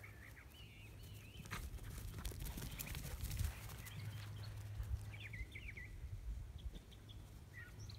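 Scattered thumps and rustles of footsteps on grass and a handheld phone being moved, with small birds chirping in short runs in the background, near the start, midway and near the end.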